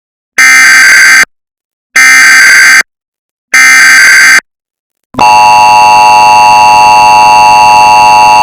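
Emergency Alert System tones in a chorded, multi-note version: three roughly one-second squawks of the coded data header, evenly spaced, then about five seconds in the long, steady attention-signal tone begins.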